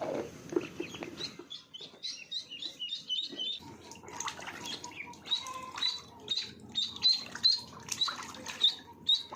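Ducklings peeping: many short, high chirps in quick succession.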